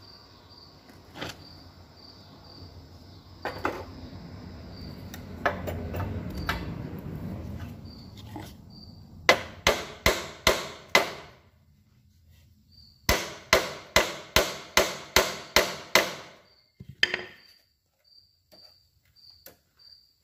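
Hammer blows on an old Yamaha motorcycle's metal front fork and fender, knocking at a stuck part to free it. First comes a run of about five sharp strikes, then after a short pause a longer run of about nine, at two to three a second, with crickets chirping faintly behind.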